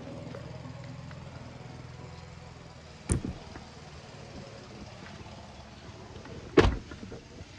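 A car engine idling, then switched off about three seconds in, followed by two heavy thumps of car doors shutting a few seconds apart, the second the louder.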